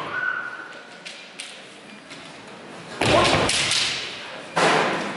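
Kendo exchange: two loud bursts of fencers' kiai shouts with bamboo shinai striking and feet stamping on the wooden floor, the first about three seconds in, the second a second and a half later. Before them come a couple of light clicks of shinai touching.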